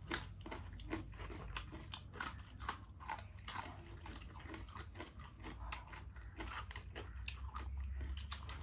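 A person chewing and biting food up close, with many small, irregular crunches and mouth clicks.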